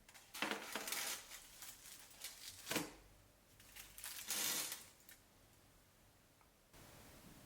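Kitchen handling sounds during food preparation: a few short bursts of rustling and knocking, with a sharp knock near three seconds in and another burst around four and a half seconds.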